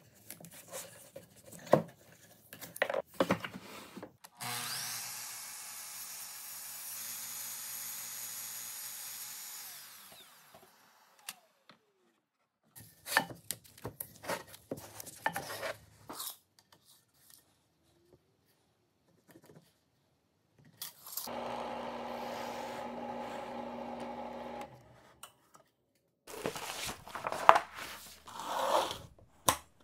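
Woodshop work sounds: painter's tape being pulled and pressed onto a hardwood leg, then a power tool running steadily for about six seconds after a quick spin-up. Some knocks follow, then another motor runs for about four seconds, and near the end a thin wood-veneer sheet crinkles as it is handled.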